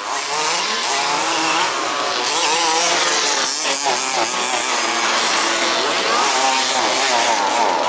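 Several 1/5-scale RC buggy two-stroke petrol engines buzzing on the track at once, their pitches rising and falling as the buggies accelerate and ease off.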